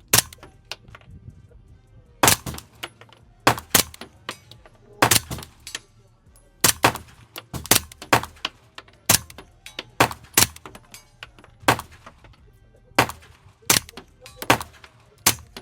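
Suppressed 9mm pistol fired repeatedly with subsonic 147-grain rounds: about seventeen sharp, muffled reports at an irregular pace of roughly one a second, some in quick pairs.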